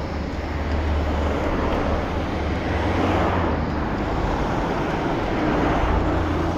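Steady roar of rushing water at Fukiware Falls, a wide waterfall and gorge, with a low rumble underneath.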